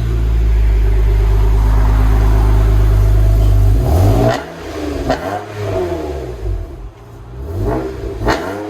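2007 Acura TL Type S's 3.5-litre V6 through a Tsudo cat-back exhaust, running steadily and loud for about four seconds, then revved in several quick throttle blips that rise and fall.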